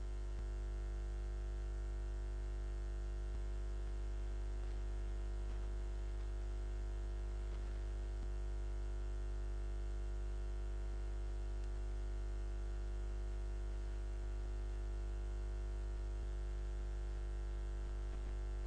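A steady electrical hum and buzz that does not change.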